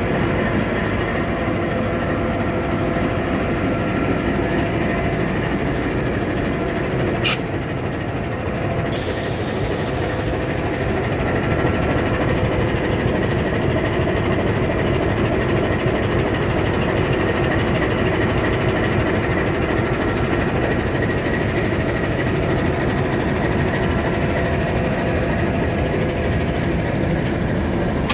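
GE U18C diesel-electric locomotive's eight-cylinder GE FDL diesel engine running steadily at idle, heard close alongside. There is a single sharp click about seven seconds in.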